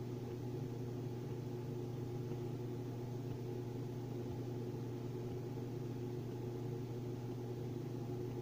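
Steady low hum with a faint hiss: room tone, unchanging, with no other sound.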